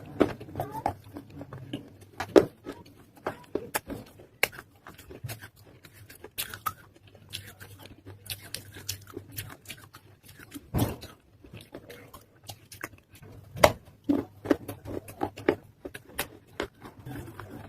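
Close-up chewing of soaked, softened pieces of earthen clay pot: a string of irregular crunches and clicks, a few of them louder.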